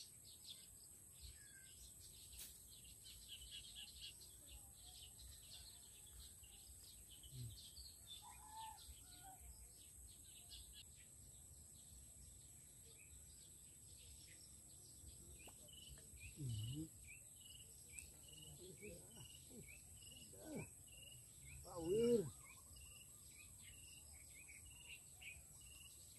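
Faint rural outdoor ambience: a steady high-pitched insect drone, with bird chirps in the first half and a regular chirp about twice a second in the second half. Brief voices sound about 16 seconds in and again, loudest, about 22 seconds in.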